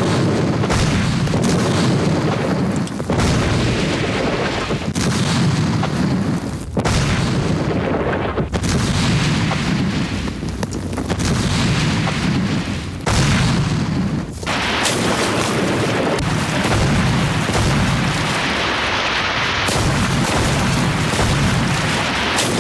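Continuous cinematic explosion and gunfire sound effects, a dense low rumble of booms with abrupt cuts every few seconds.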